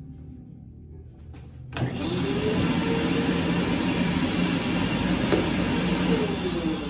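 An electric vacuum motor switches on abruptly, spins up to a steady whine and rush of air, runs for about four seconds, then starts winding down near the end.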